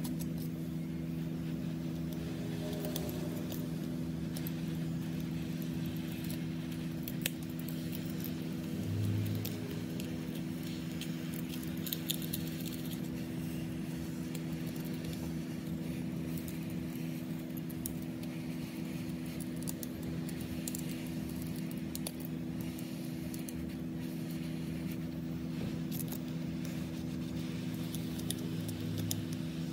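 Scattered light clicks and scrapes of small metal hand tools working on an iPhone X's glass back, over a steady low hum.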